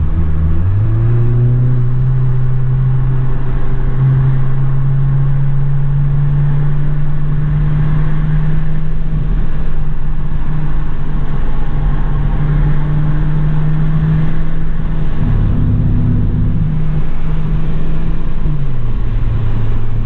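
Skoda Octavia RS245's 2.0 TSI turbo four-cylinder heard from inside the cabin, running under throttle at speed. The engine note rises about a second in and holds steady, dips briefly about three-quarters of the way through, then drops again near the end.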